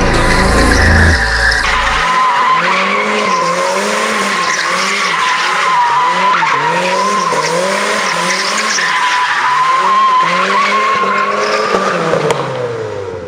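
A car sliding in circles with its tires squealing steadily while the engine note rises and falls in an even rhythm, about one and a half times a second. The sound dies away near the end.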